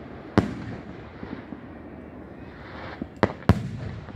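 Firecrackers going off high in the air around a hot-air festival balloon: one sharp bang just after the start and two more in quick succession near the end.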